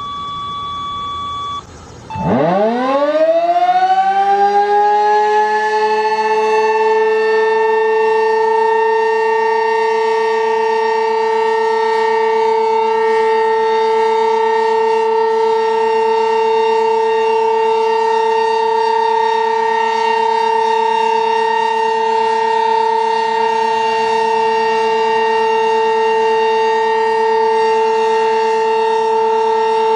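Sentry 15V2T-B dual-tone outdoor warning siren winding up from a stop, its pitch climbing quickly for a few seconds, then holding a steady two-tone Alert signal in a routine test. A steady high tone sounds before the siren starts and cuts off just before the wind-up.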